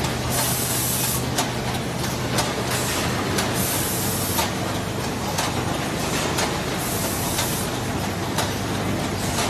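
Premade-pouch filling and sealing machines running: a steady mechanical din with a low hum, sharp clacks about once a second, and short hissing bursts every few seconds.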